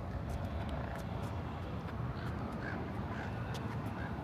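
Outdoor background: a steady low rumble with a few faint, short chirps, about one every half second in the second half.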